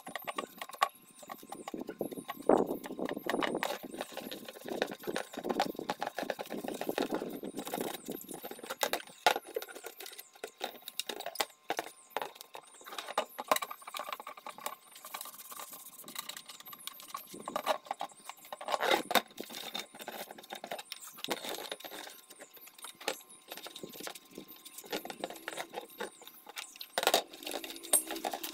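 A sponge scrubbing the plastic housing of an electronic weighing scale: scratchy rubbing strokes, heaviest in the first several seconds, mixed with many small clicks and knocks as the plastic shell is handled and shifted on the table.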